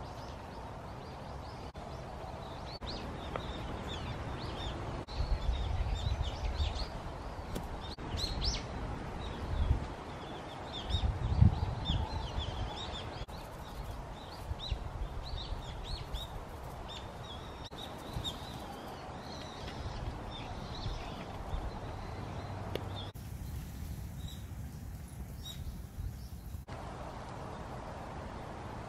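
Small birds chirping and twittering repeatedly over steady outdoor background noise. A few low thumps and rumbles stand out about five seconds in and again about eleven seconds in.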